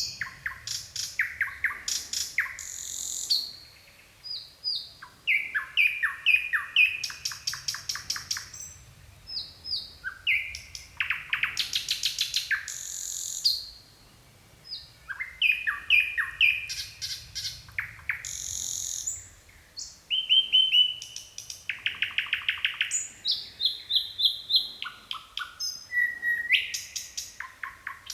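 Nightingale singing a run of varied phrases: fast trills of repeated clicking and rattling notes, and clear whistled notes, each phrase cut off by a short pause.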